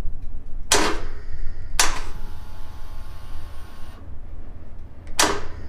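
Electric starter of a 2020 Harley-Davidson Iron 1200 Sportster engaging in three short bursts about a second, two seconds and five seconds in, without the engine catching. The battery sags to about 7 volts under the crank, the owner's sign that it is failing.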